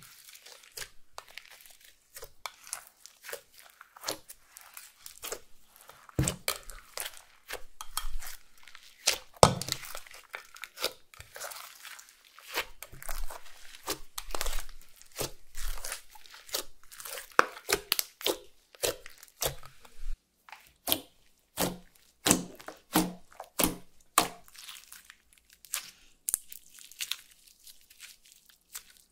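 Hands squishing, folding and poking clear slime mixed with makeup and glitter, making an irregular run of sticky clicks and crackles that grows thicker and louder a few seconds in.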